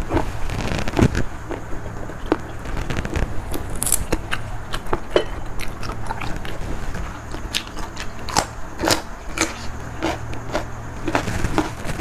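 A person chewing a mouthful of seafood salad with raw vegetables close to the microphone. Irregular wet crunches and clicks, sharpest in a cluster about eight to nine and a half seconds in.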